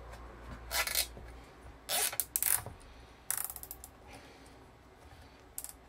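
Nylon zip ties being pulled tight, the ratchet teeth giving about five short zipping rasps.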